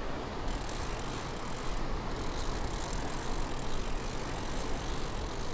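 Fishing reel being cranked fast to bring in a hooked fish: a steady mechanical whirring that starts about half a second in and pauses briefly around two seconds.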